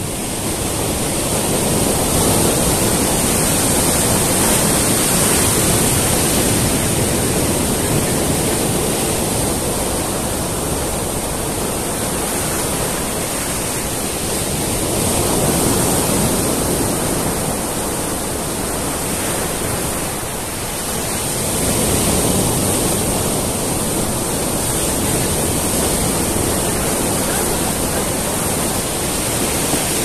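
Ocean surf breaking among rocks and washing up a sandy beach: a continuous rush of water that swells and eases every several seconds as waves come in.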